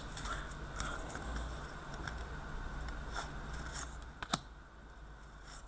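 Faint handling of a stack of 2015-16 Upper Deck Champs hockey trading cards: card stock sliding and rubbing, with a few soft clicks, the sharpest about four seconds in.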